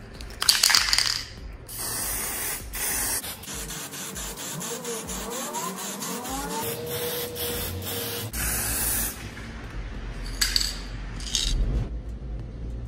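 Aerosol spray can of clear varnish hissing in repeated bursts, some about a second long and some short, as a coat is sprayed onto a sheet-metal panel.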